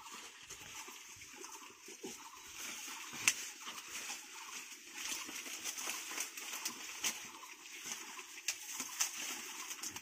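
Several piglets feeding on fresh corn plants: irregular wet crunching and chewing, with the leaves and stalks rustling as they root through them.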